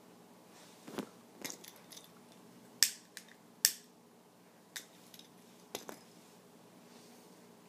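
A tobacco pipe being lit with a lighter: a string of about ten short, sharp clicks and scrapes in the first six seconds, the two loudest near the middle.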